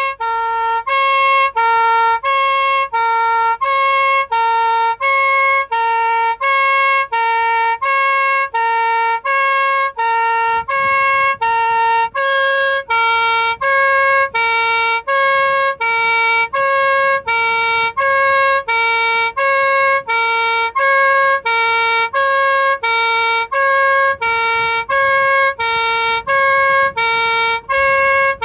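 Police car two-tone horn (hi-lo siren) sounding on its own, heard from inside the car: a lower and a higher reedy note alternating, each held about half a second, about one cycle a second and steady throughout.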